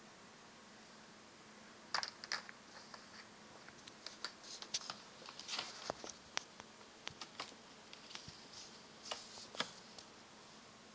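Irregular light clicks and taps of plastic twist-up crayons being picked out of and knocked against their box, starting about two seconds in and going on until near the end.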